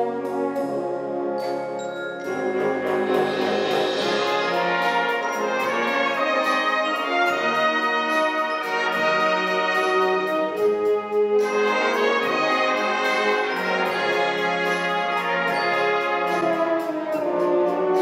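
Symphonic wind band playing a medley of 1960s tunes, the brass section prominent over a steady drum-kit beat. The band gets louder about two seconds in.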